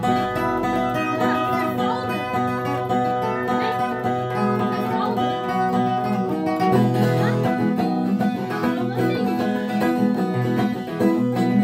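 Viola caipira, the ten-string Brazilian folk guitar with paired strings, playing the instrumental introduction to a song: a continuous run of plucked notes over sustained lower tones.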